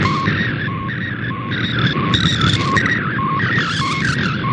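MFSK64 digital picture transmission received on shortwave: a continuous, rapidly warbling and shifting data tone carrying a colour image, over the steady hiss and rumble of shortwave static.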